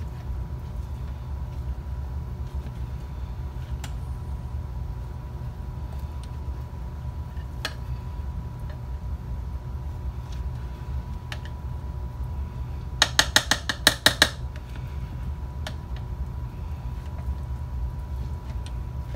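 Metal utensil stirring and lifting a ground-meat mixture in a slow cooker pot, with scattered scrapes and clicks over a steady low hum. About 13 seconds in, a quick run of about ten sharp clicks over a second or so, the utensil knocking against the pot.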